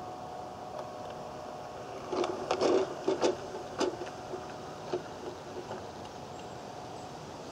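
Small battery-powered garden railway locomotive running, its electric motor humming steadily as it pulls a box van away. A run of sharp clicks and clatters from the wheels on the track comes about two to four seconds in, then a few lighter clicks.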